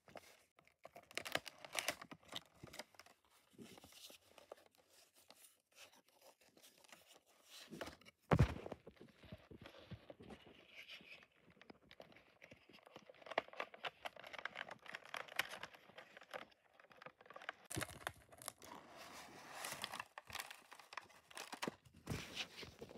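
Paperboard box and clear plastic packaging tray being handled and pried open: rustling, scraping and crinkling, with one thump about eight seconds in.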